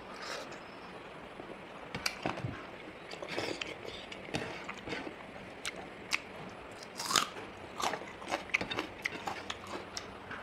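A person chewing and biting into chicken wings, with irregular clicks and smacks of the mouth. The loudest comes about seven seconds in.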